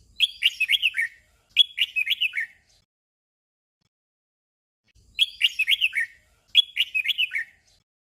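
Red-whiskered bulbul song: a short phrase of quick, warbled whistling notes sung twice back to back, a 'double' phrase, and the same pair again about five seconds in.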